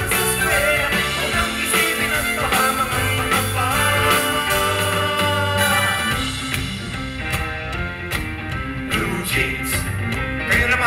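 Live pop music: two male singers singing into microphones over a backing band.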